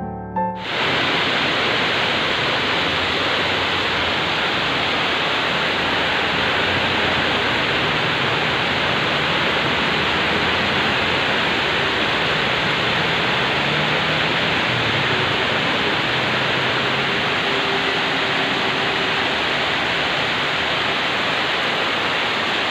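Heavy rain pouring steadily, a dense even hiss that cuts in sharply just under a second in. A faint engine hum from a passing vehicle shows in the middle.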